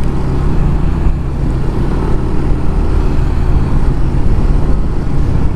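Motorcycle engine running steadily while riding at road speed, with a steady rush of wind noise over it.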